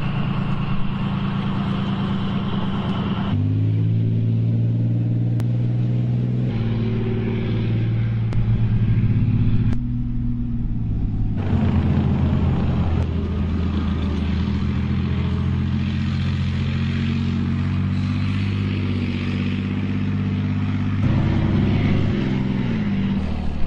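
Leopard 2A7V tank's diesel engine running steadily, its tone changing abruptly at several cuts between shots. A short rise and fall in engine pitch comes near the end.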